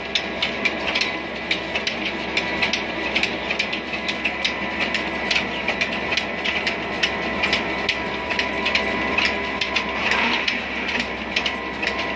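An old diesel-driven flour mill's line shaft, spoked pulleys and flat belts running, with a steady hum under regular sharp clicking about three times a second.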